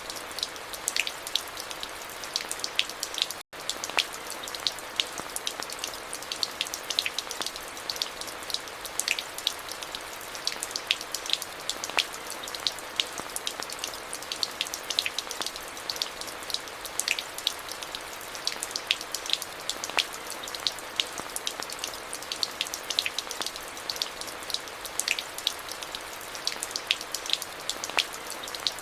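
Steady rain falling on hard, wet surfaces, with many separate drops ticking sharply over the even hiss. The sound cuts out for an instant about three and a half seconds in.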